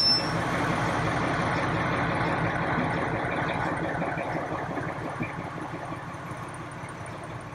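British Rail Class 14 diesel-hydraulic shunting locomotive's diesel engine running steadily as the locomotive moves slowly past, the sound gradually fading over the last few seconds.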